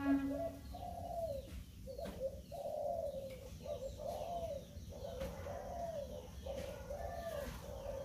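Doves cooing in aviaries: a steady run of low coos that rise and fall, several birds calling over one another. Music fades out within the first half-second.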